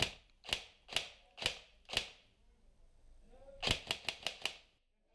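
Lonex M4 SOPMOD electric blowback (EBBR) airsoft rifle firing, its recoil system cycling with each shot: five single shots about half a second apart, then a short quick burst of about five shots.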